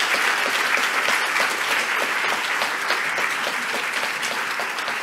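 An audience applauding, a dense patter of many hands clapping that slowly tapers off.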